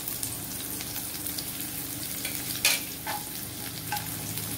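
Sliced onions and curry leaves sizzling in hot oil in a kadai, stirred with a slotted spoon. A steady hiss, with one sharp clink about two and a half seconds in.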